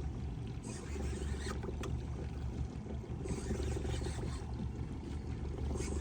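Panga boat at sea: a steady low motor hum, with rushes of hissing noise coming and going about three times.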